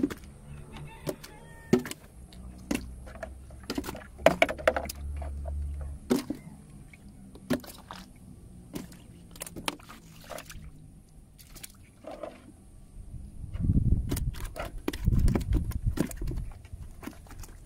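Scattered knocks and taps on a small fiberglass boat, with water sloshing in its bottom as fish are handled. A rough low rumble comes in about three-quarters of the way through and lasts a few seconds.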